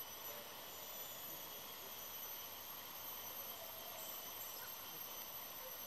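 Faint, steady outdoor background hiss with a thin, steady high-pitched band above it; no distinct event stands out.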